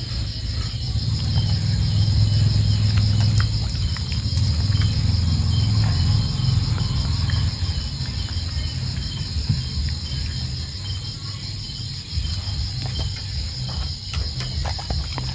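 Insects chirping in a steady rapid pulse over a loud low rumble that is strongest in the first half, with a few sharp clicks near the end.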